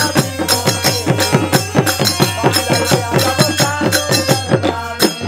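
Music: an instrumental stretch of an upbeat Bangla song, driven by a fast, even percussion beat over a steady bass line.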